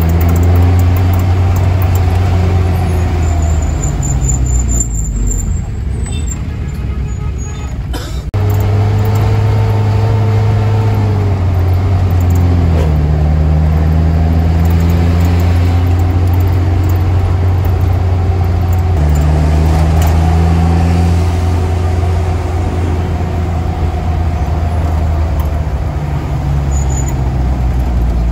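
Mitsubishi Colt L300 minibus engine, heard from inside the cab, running hard at speed; its pitch drops and climbs several times as the driver lets off and shifts. It goes quieter for a few seconds and cuts off abruptly about eight seconds in, then comes back loud.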